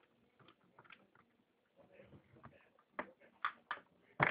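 Small metal clicks and taps of nuts, screws and a hand tool being worked on a wall fan's motor and gearbox, scattered at first, with a louder cluster of knocks near the end.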